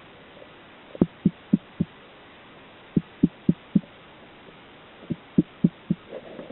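Three series of four dull, low knocks each, evenly spaced at about four a second, with a short pause between the series.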